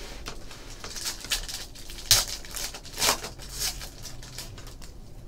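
Foil wrapper of a Panini Contenders football card pack crinkling and tearing as it is ripped open by hand, with two sharp crackles about two and three seconds in.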